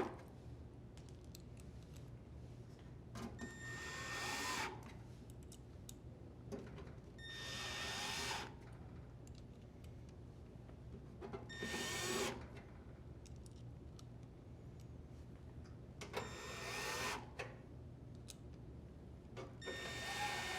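Cordless drill driver spinning screws in, one at a time: five short runs of about a second each, spaced roughly four seconds apart.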